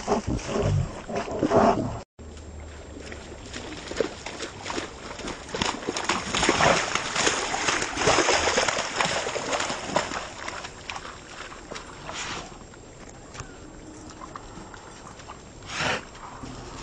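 A yellow Labrador splashing along a shallow, muddy ditch stream, its paws slapping and sloshing the water in quick, irregular splashes. The sound cuts out briefly about two seconds in, is busiest for the next several seconds, and eases off near the end.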